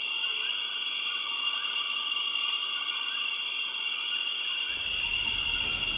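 A steady, high-pitched chorus of calling animals: a continuous trill with a lower, wavering layer beneath it. A low rumble comes in near the end.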